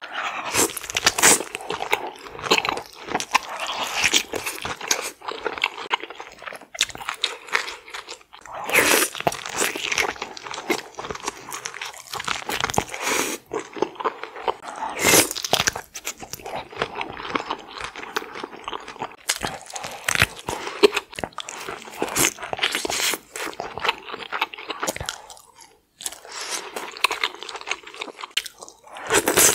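Close-miked eating sounds of a person biting and chewing sauce-coated seafood boil: a steady stream of irregular wet smacks, crunches and chews, with a brief pause near the end.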